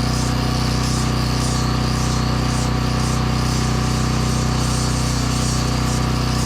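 Portable generator running steadily, under repeated rasping strokes of sanding on a carved wooden pumpkin, about two strokes a second.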